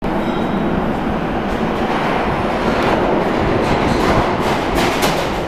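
An R143 subway train rumbling along the tracks as it comes into the underground station. Rapid wheel clicks over the rail joints start near the end.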